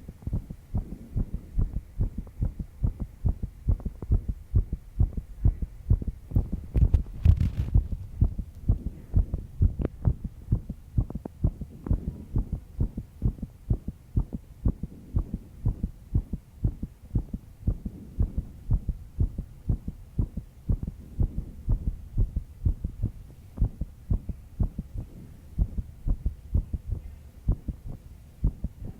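A young woman's heartbeat, fast and steady, beating a few times a second; the uploader puts the fast pace down to stress after a sleepless night. A brief rustle about seven seconds in.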